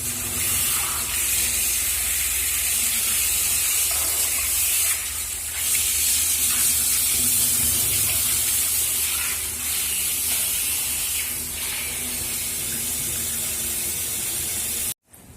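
Steady hissing spray of water, as a shower head or tap runs while the Persian cat is bathed. It cuts off suddenly near the end.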